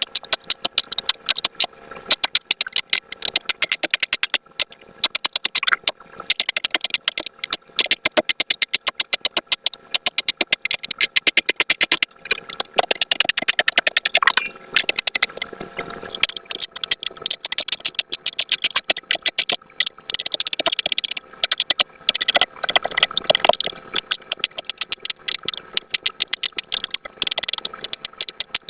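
Silicone pop-it fidget toy bubbles being pressed through one after another: a rapid run of sharp pops, several a second, with a few short pauses.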